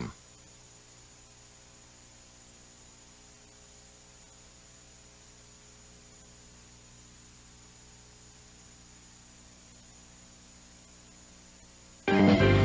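Faint, steady electrical mains hum with a thin high whine, heard as dead air in an off-air broadcast recording. There are no alert tones and no voice until speech cuts in near the end.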